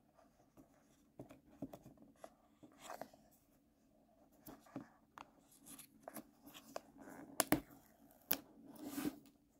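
Fingernail scratching and picking at the paper pull tab of a sealed AirPods box, then the tear strip peeling off in quiet small rips, with a couple of sharp clicks about seven and eight seconds in.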